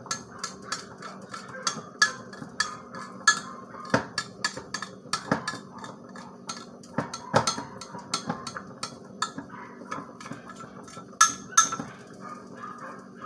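A utensil clinking and scraping against cookware in irregular sharp clicks, a few a second, the loudest near the end, over a faint steady hum.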